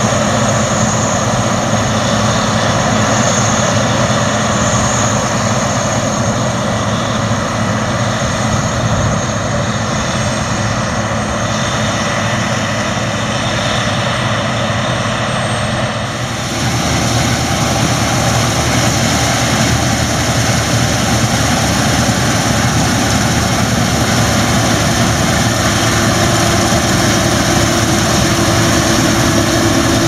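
Claas Lexion combine harvesters running while cutting wheat, a steady engine and machinery drone. About halfway through, the sound changes abruptly and becomes brighter and closer.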